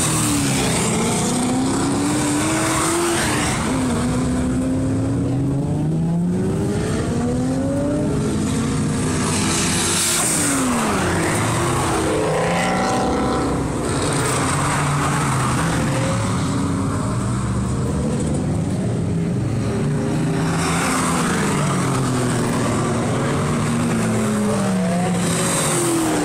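Several cars' engines accelerating hard down a race track straight, one after another. Their pitch climbs through each gear, drops back at the shifts and falls away as each car passes.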